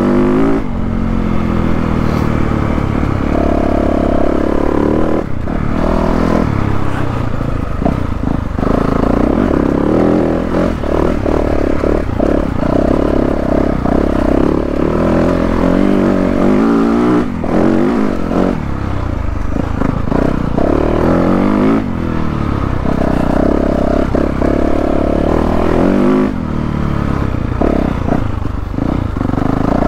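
2022 Yamaha YZ450F dirt bike's 450 cc single-cylinder four-stroke engine running under constant throttle changes, revving up and dropping back again and again while being ridden. Knocks and clatter come through over the bumps.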